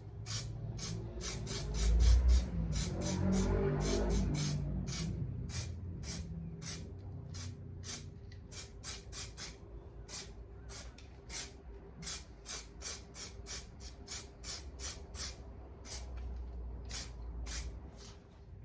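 Aerosol can of weld-through primer sprayed in many short bursts of hiss, about two to three a second, with low handling thuds about two to four seconds in.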